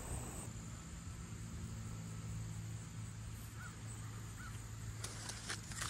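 Quiet outdoor ambience: a steady low hum, two faint short bird calls in the middle, and light rustling and clicks near the end.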